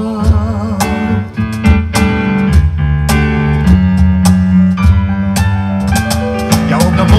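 Live pop duet music played over outdoor stage PA speakers: a backing track with guitar and a steady drum beat, with a singer's held, wavering note near the start.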